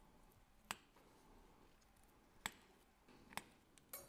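A watchmaker's fine screwdriver and the small case-back screws of a steel watch case giving three sharp, light clicks, spaced roughly a second and a half and then a second apart, followed by a brief patter of smaller clicks near the end.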